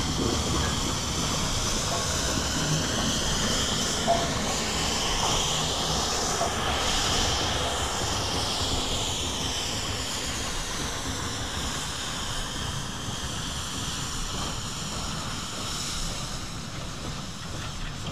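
A steam-hauled train rolling past close by, a steady rushing noise of wheels and steam that slowly fades as it draws away.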